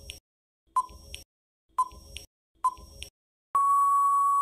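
Quiz countdown timer sound effect: short beeps about once a second, then one long steady beep near the end, signalling time out.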